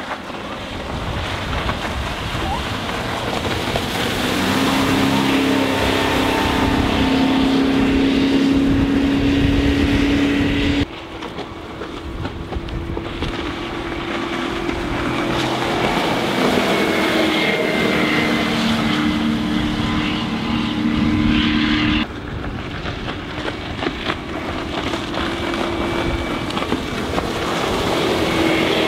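Rinker 282's MerCruiser 496 Mag big-block V8 stern drive running at speed as the boat planes past, growing louder as it comes closer. The sound cuts off abruptly twice and starts again quieter, then builds once more.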